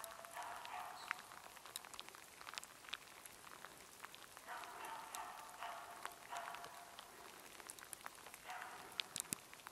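A hunting dog barking from a distance in four short bouts of quick barks, holding a capercaillie treed so the hunter can approach. Scattered faint ticks come in between the bouts.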